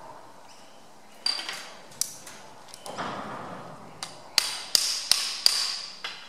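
Sharp metallic taps and clicks, each with a short ringing tail, from handling the compression tester gauge: a couple spaced out early, then five in quick succession near the end, with a brief scrape about three seconds in.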